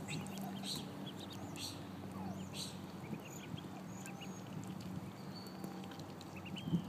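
Ducklings peeping: many short, high, thin chirps in quick succession, some rising and some falling in pitch, over a steady low hum.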